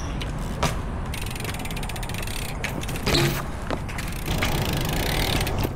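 Rear hub ratchet of a BMX bike ticking rapidly as the bike coasts on concrete, in two stretches, with a sharp knock a little after three seconds in.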